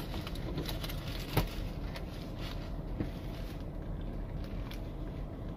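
A person eating a burger, biting and chewing, with a sharp click about a second and a half in and a softer one about three seconds in. Underneath is the steady low hum of a car cabin.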